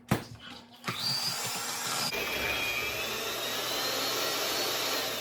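Electric mixer beating an egg into creamed butter and sugar: a couple of knocks, then the motor starts about a second in and runs steadily with a faint whine that shifts about two seconds in, fading near the end.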